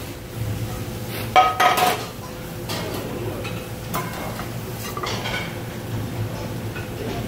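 Stainless steel frying pans clanking on a stovetop: one loud ringing metal clank about a second and a half in as a pan is handled, then lighter taps and scrapes of a metal spatula in the pan, over a steady low hum.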